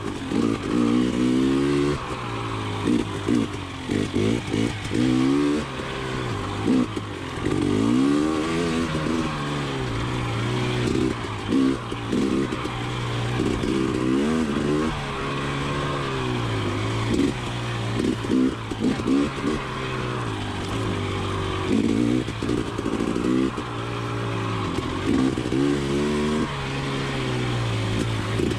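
Single-cylinder two-stroke engine of a KTM 300 XC TPI dirt bike, heard through a Pro Circuit Type 296 spark-arrester silencer while being ridden, revving up and falling back again and again as the throttle is worked.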